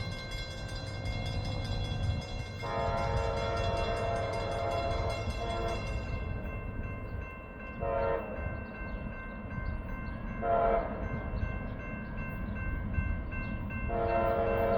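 Diesel locomotive's Nathan K5LA five-chime air horn sounding a sequence: a long blast about three seconds in, two short blasts, then another long blast starting near the end. Beneath it runs the low rumble of the passing train.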